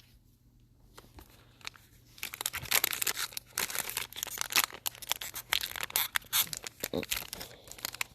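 Foil wrapper of a Donruss football card pack being torn open and crinkled by hand, a dense crackling that starts about two seconds in and keeps on.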